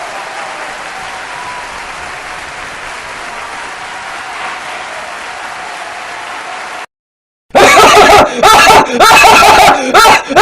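Crowd cheering and applauding, an even wash of noise that cuts off abruptly about seven seconds in. After a brief silence, a much louder, choppy, voice-like sound effect starts near the end.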